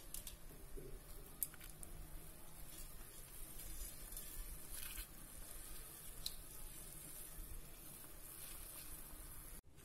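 Faint steady hiss of a steel pan of water with herbs heating on the stove, with a few light clicks.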